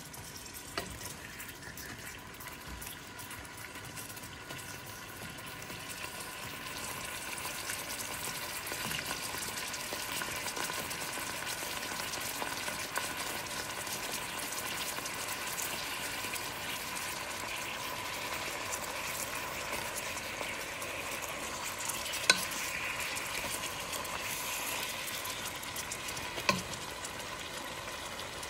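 Fish pieces with sliced onion and ginger sizzling in a cooking pot, a steady hiss that grows louder from about six seconds in. Two sharp knocks come near the end.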